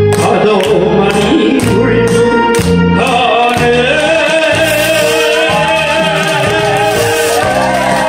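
A man singing into a microphone over a karaoke backing track with a steady beat, drawing out long, wavering held notes from about three seconds in.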